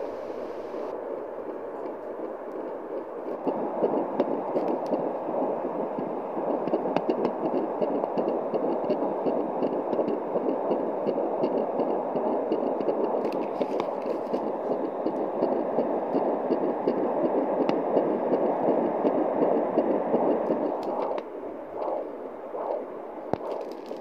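Heartbeat of an 11-week fetus picked up by a handheld home fetal Doppler and played through its speaker: a fast, noisy rhythmic pulse at about 164 beats a minute, twice the mother's own rate. It grows louder a few seconds in and fades near the end.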